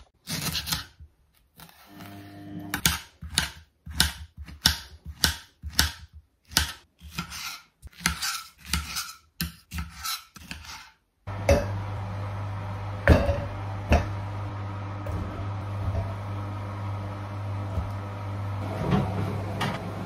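Knife slicing strawberries and banana on a marble chopping board, cutting about twice a second. About eleven seconds in, a steady appliance hum takes over, with a couple of knocks.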